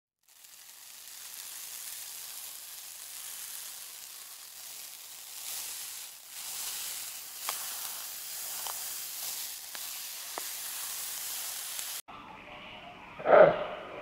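Fine, steady crackling hiss with a few sharp clicks, as a hermit crab in its shell shuffles over sand and shell fragments. It cuts off suddenly near the end, giving way to a different background with one short loud sound.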